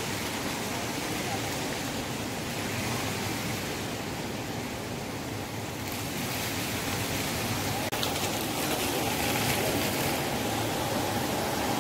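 Steady rushing background noise of a large indoor shopping mall hall, with a faint steady tone coming in during the second half and a single faint click about eight seconds in.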